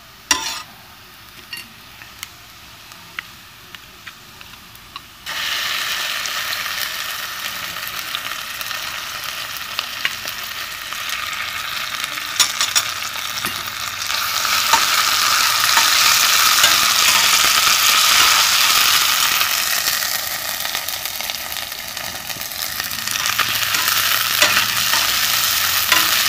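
Onions frying in mustard oil in a stainless steel pot, with a metal spatula clicking and scraping against the pot as a ginger, garlic and cumin paste is stirred in. The sizzle gets much louder about five seconds in.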